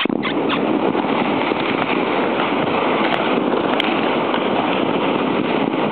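Plastic sled sliding fast over snow while towed by a horse: a steady, dense scraping crackle of the sled on the snow.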